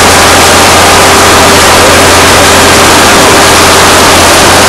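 Hot water and steam gushing from a drilled hot-spring well at a drilling rig: a loud, steady rushing, with a steady low hum underneath.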